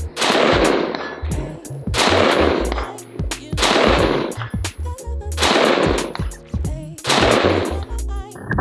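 Five shots from an AR-15-style rifle, about two seconds apart, each with a long echoing tail, over electronic background music with a beat.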